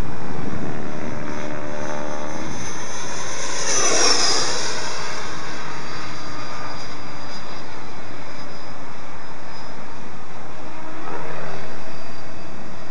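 Electric ducted fan of a 90mm Taft Super Scorpion RC jet (11-blade fan on a 1500kv inrunner motor) whining in flight. The whine swells and sweeps down in pitch as the jet passes about four seconds in.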